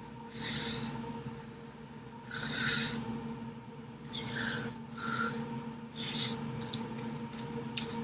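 Person eating extra-spicy fire-noodle ramen, making about six short, hissy mouth and breath sounds (slurps and sharp intakes of breath against the heat) at uneven intervals over a steady low hum.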